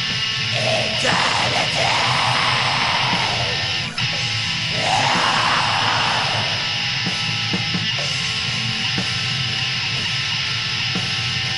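Lo-fi black metal demo recording: a dense wash of distorted electric guitars and drums, with harsh screamed vocals over the first half. The music drops out for a moment about four seconds in, and drum hits stand out at an even pace in the second half.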